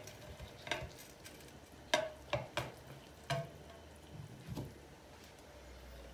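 A frying pan clinking and knocking against a ceramic plate as it is turned over to tip a cooked egg-and-cabbage dish out onto the plate: several sharp, short clinks spread over a few seconds.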